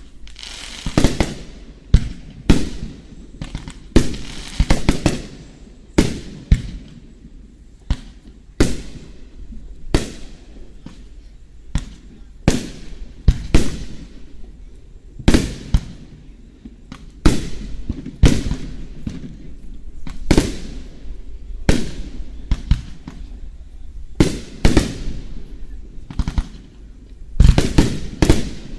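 Aerial fireworks show: a steady run of sharp booms, about one to two a second, from shells bursting overhead, with crackling tails after some bursts and a quicker cluster near the end.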